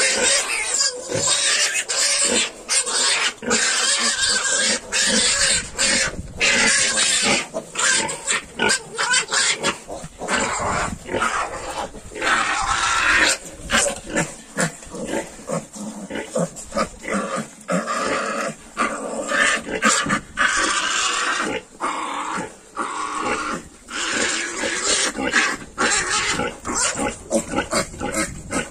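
A litter of three-week-old Yorkshire piglets nursing at their sow: a busy jumble of pig grunts and squeals in rapid short bursts that goes on without a break.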